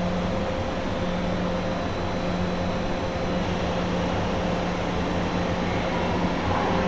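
Siemens ES 64 U2 'Taurus' electric locomotive standing under power, a steady hum from its transformer and cooling blowers over station noise. Near the end, new musical tones from its traction converters come in as it begins to pull away.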